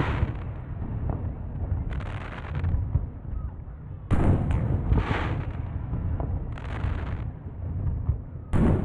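Fireworks bursting: two sharp booms about four and a half seconds apart, with crackling bursts between them, over a steady low rumble.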